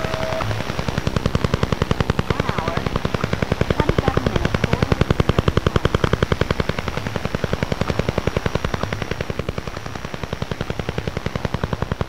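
Rapid, even, woodpecker-like ticking from a Spirit Radio crystal diode radio circuit wired into a computer, picking up the electromagnetic pulses a wireless modem gives off once it has connected. A steady tone cuts off just after the start.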